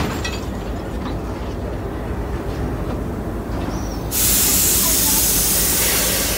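Diesel locomotive engine idling with a steady low rumble; about four seconds in, a loud steady hiss of air starts suddenly from the brake line as the locomotive is coupled to the train.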